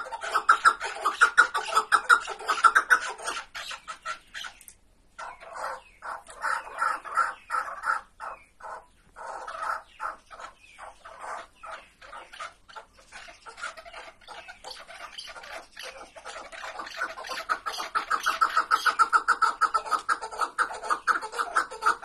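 Chukar partridges calling: a rapid run of clucking 'chuk' notes that breaks off about four seconds in, comes back sparser and broken through the middle, and grows dense again from about eighteen seconds.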